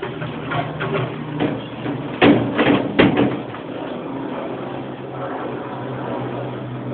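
Electrolux LTR10 top-loading washing machine spinning with an unbalanced load: a steady motor hum broken by several loud knocks about two to three seconds in, the sign of an off-balance drum.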